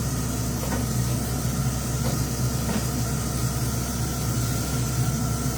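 Steady hiss of egg-in-bread frying in hot oil in a pan, over a low steady hum, with a few faint taps.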